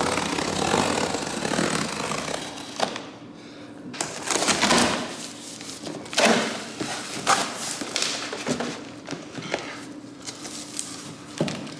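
A large cardboard shipping box being opened by hand: irregular bursts of scraping and rustling cardboard and packaging, with a few sharp knocks.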